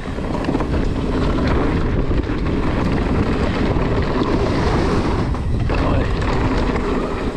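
Wind rushing over the microphone of a mountain bike rider's camera, with tyres rumbling over a dirt trail during a fast downhill descent, and scattered small clacks and rattles from the bike.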